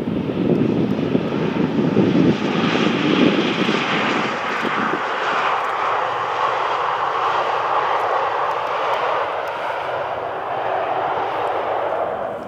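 Airbus A320 jet engines running loudly as the airliner rolls down the runway just after touching down. A deep roar fills the first few seconds, then eases into a higher, steady jet hiss that cuts off sharply at the very end.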